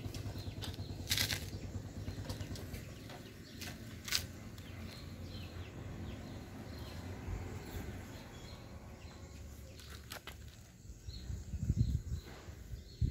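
Low rumbling and rustling noise, with sharp clicks about a second in, near four seconds and around ten seconds, and a few low thumps near the end.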